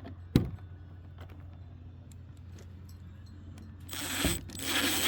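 A single sharp click about half a second in. Then, near the end, a power driver runs, driving a lumber screw into a gate hinge.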